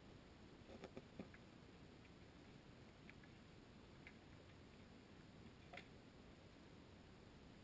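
Near silence from a GoPro in its waterproof housing under water: a faint low rumble with a few scattered faint clicks, a small cluster about a second in and single ticks later.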